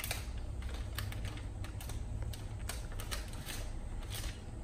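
Plastic candy wrapper crinkling with irregular sharp clicks, a few a second, as a candy stick pack is handled and torn open, over a low steady hum.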